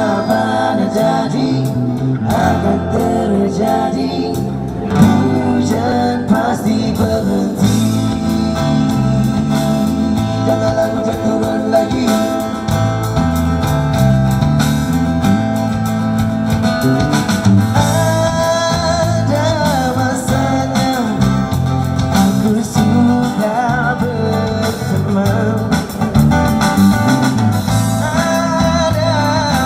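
Live amplified busker band: a woman singing into a microphone over acoustic guitar and drums, with a stepping bass line underneath.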